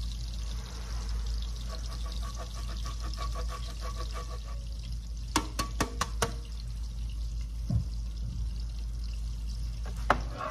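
A block of Parmesan being grated by hand: rasping strokes at about four a second for a few seconds, then a quick run of five sharp clicks and taps, with one more click near the end, over a steady hiss.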